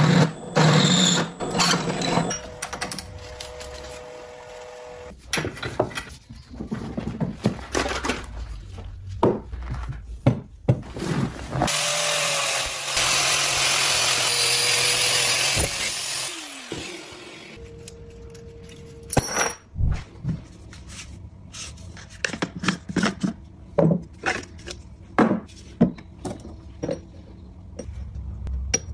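Workshop power tools on metal: a drill press drilling at the start, then an angle grinder grinding metal for about four seconds near the middle, which is the loudest part. Many short clicks and knocks follow.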